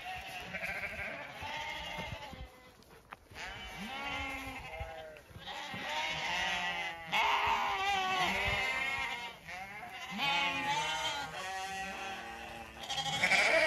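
A flock of Zwartbles sheep bleating, many calls overlapping almost without pause, some deep and some high-pitched, swelling loudest near the end.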